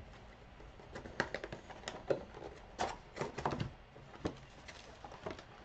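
Irregular crackles and clicks of trading-card packs and wrappers being torn open and handled, densest between about one and four seconds in.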